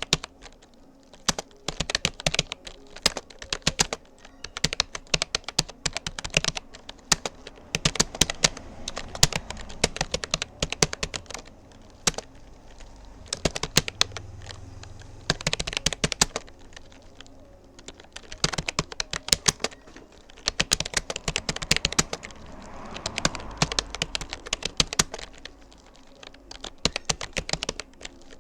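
Typing on a Rapoo computer keyboard: rapid, irregular runs of key clicks with short pauses between words and phrases.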